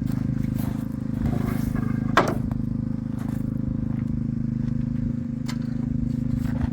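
A motor engine running steadily at an even idle, with scattered knocks and scrapes and a sharp clatter about two seconds in.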